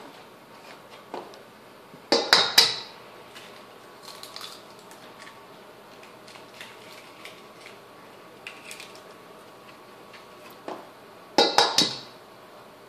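Eggs being cracked on the rim of a stainless steel mixing bowl: a cluster of sharp knocks about two seconds in, and another near the end as the second egg is cracked. Faint small taps of shell being handled come in between.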